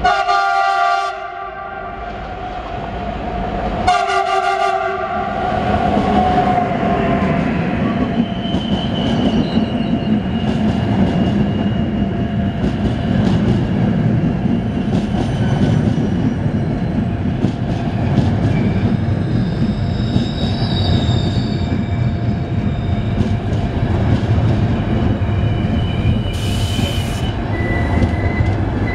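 ÖBB EuroCity train with an electric locomotive sounding two horn blasts about four seconds apart as it approaches, then its coaches running past close by, with a steady rumble, wheel-over-rail clicks and thin high wheel squeals.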